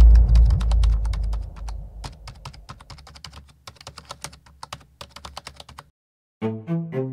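Quick, irregular keyboard-typing clicks, used as a sound effect, over a deep low rumble that fades away in the first couple of seconds. The typing stops about six seconds in, and after a brief silence low bowed-string music begins.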